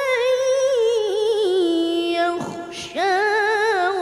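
A boy's melodic Quran recitation (tilawah), a high voice holding long ornamented notes with a wavering vibrato. It breaks off briefly about two and a half seconds in, then the melody resumes on a held note.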